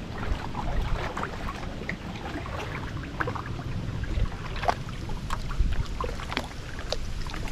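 Werner kayak paddle strokes: the blades dipping and pulling through calm water with irregular small splashes and drips beside the hull, over a low rumble of wind on the microphone.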